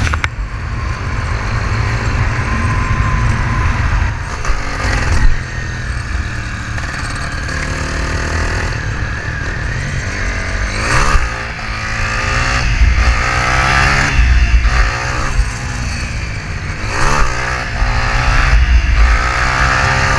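Motorcycle engine running under way, its pitch rising and falling several times in the second half as the rider accelerates and shifts, with heavy wind rushing over the microphone.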